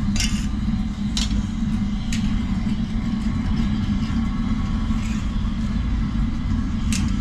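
Steady low rumble of the tandoor oven's burner running, with a few sharp clicks and knocks of bakery work scattered through it.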